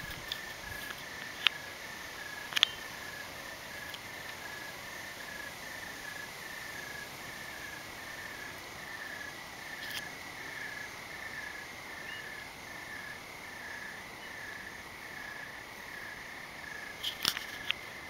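Night insects calling: one keeps up a steady, unbroken high trill while a cricket just below it chirps in a regular pulsing rhythm. A few sharp clicks cut in, twice in the first few seconds, once midway and as a cluster near the end.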